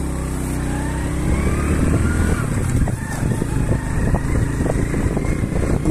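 Motorcycle engine running as it rides along a rough dirt track. It is a steady low hum at first, then turns into a rapid, uneven rattle about two and a half seconds in.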